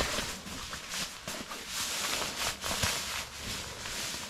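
Fabric stuff sack and rolled self-inflating sleeping pad rustling and scraping in irregular strokes as the pad is pushed into the sack.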